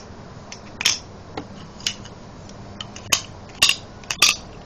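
Small hard ammunition clicking and clinking against a homemade airgun's magazine as it is handled and loaded, about six separate sharp clicks.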